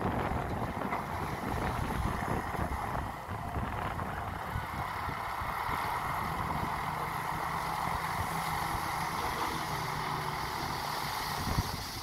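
Dump truck's diesel engine running as the hydraulic hoist tips the bed, with loose soil pouring out past the open tailgate. Wind rumbles on the microphone, and a steady low hum joins about halfway through.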